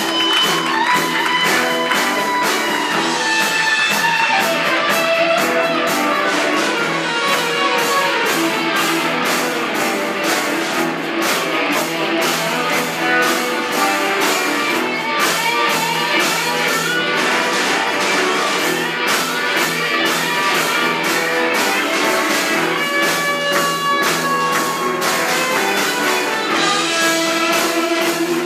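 Live rock band playing an instrumental passage: an electric guitar lead with sustained, bending notes over bass, keyboard and a steady drum beat.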